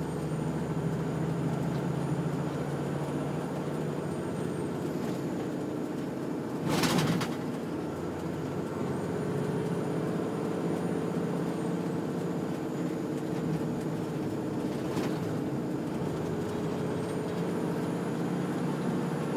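Engine and road noise heard inside the cab of a heavy vehicle driving along, the engine pitch slowly falling and rising as it changes speed. A short, louder burst of noise comes about seven seconds in.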